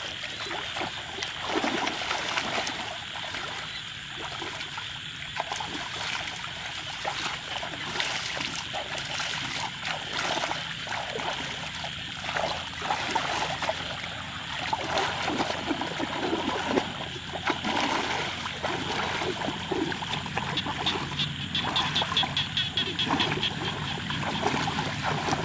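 Shallow, muddy paddy water splashing and sloshing in irregular bursts as two people scoop and throw it by hand. Near the end the sloshing comes from them wading through the water.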